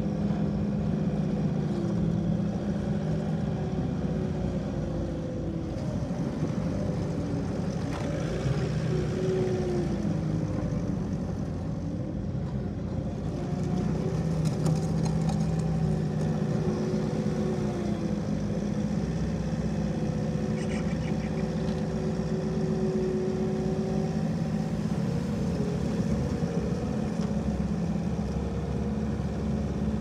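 Bobcat T770 compact track loader's diesel engine running steadily under work, with a whine from the loader's hydraulics that slowly rises and falls in pitch as the arms lift and tip the bucket.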